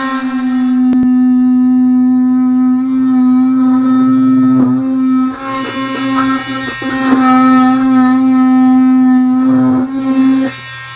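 Dremel oscillating tool cutting through an acrylic (Plexiglas) aircraft canopy: a loud, steady buzzing drone with a strong pitched hum. It falters briefly a little after four seconds and again around seven seconds, then stops shortly before the end.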